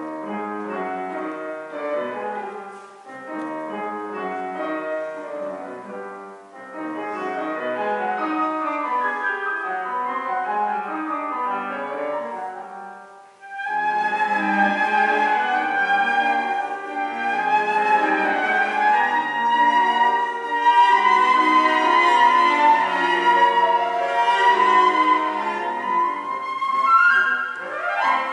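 Live classical chamber music: piano and cello playing together, then after a brief pause about halfway through the flute enters with a sustained melody over them. A quick rising run sounds near the end.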